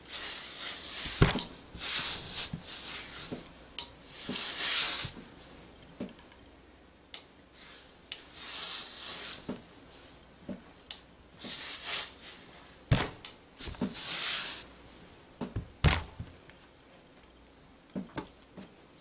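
Gravity-feed steam iron pressing a knit fabric piece: repeated bursts of hissing, each about a second long, with a few sharp knocks in between.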